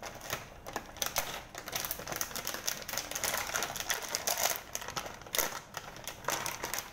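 Plastic packet crinkling and crackling in quick, irregular clicks as it is pulled open and handled, busiest around the middle.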